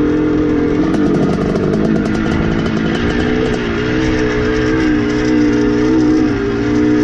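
1981 Suzuki RM465's 465 cc two-stroke single-cylinder engine running under the rider on a dirt trail, its note breaking up about a second in and then rising and falling as the throttle is worked. The owner says the engine is getting a bit rattly and due a top-end rebuild.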